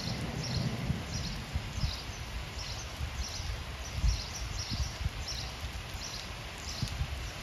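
Rain falling into standing water on a flooded paved car park, a steady hiss with uneven low rumbles. A short high chirp repeats two or three times a second throughout.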